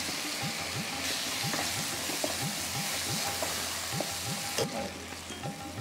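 Spinach and black-eyed pea masala sizzling in a pan while a wooden spatula stirs it, in repeated scraping strokes a few times a second. The sizzle drops away about four and a half seconds in.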